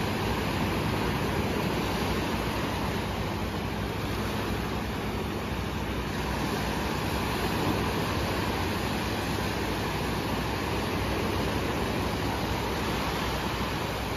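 Small sea waves breaking and washing up the sand in a steady, even rush of surf.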